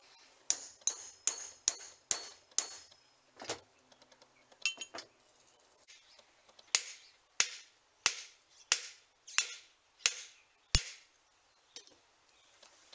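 Hammer blows on a steel drift and the bench grinder's motor shaft, tapping the bearing into place: a quick run of about six light taps, a few scattered ones, then about seven harder, evenly spaced strikes, each with a short metallic ring.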